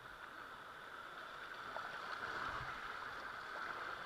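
River water rushing past a raft, a steady hiss that grows a little louder about two seconds in.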